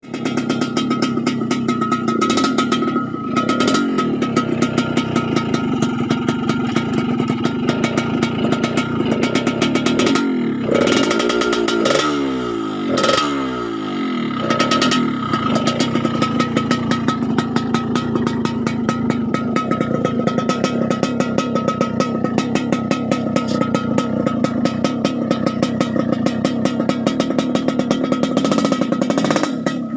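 Yamaha RX-King's single-cylinder two-stroke engine running with a crisp, raspy, rapidly pulsing exhaust note. Its speed swings briefly about halfway through, then it settles back to a steady run.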